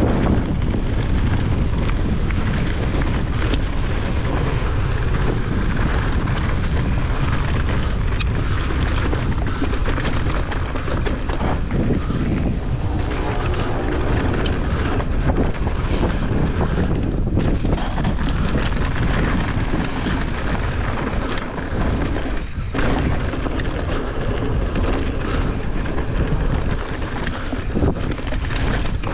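Mountain bike descending a loose, rocky dirt trail: tyres crunching over gravel and the bike rattling over stones, mixed with steady wind buffeting on the camera microphone.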